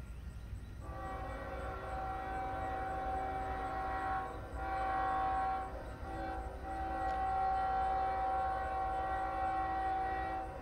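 Union Pacific diesel locomotive's multi-chime air horn sounding for a grade crossing as the train approaches: a long blast, a shorter one, a short one and a final long one. This is the standard grade-crossing warning.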